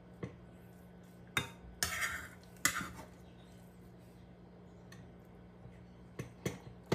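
A metal spatula and wooden chopsticks knock and scrape against a wok and a stainless steel pot as a vegetable and pork stir-fry is tossed and scooped across. A handful of sharp clicks, bunched around the second and third seconds and again near the end, sit over a steady low hum.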